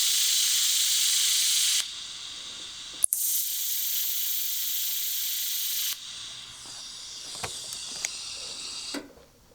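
TIG welding arc on thin sheet steel, a steady high-pitched hiss. It stops briefly, restarts about three seconds in with a sharp crack as the arc strikes, and runs again until about six seconds. A fainter hiss with a few light ticks follows until it dies away near the end.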